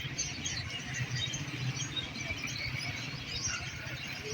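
Many small caged birds chirping and twittering together, a dense, continuous chatter over a steady low background hum.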